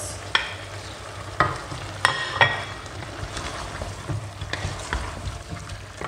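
Meat sizzling in a hot stainless-steel pot as it is scraped in from a plate and stirred with a wooden spoon. Several sharp knocks against the pot, with a couple of ringing metallic clinks about two seconds in.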